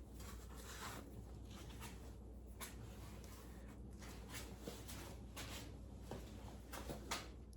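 Faint scattered clicks and rubs of hands handling parts and tools while working on an engine, over a low steady hum.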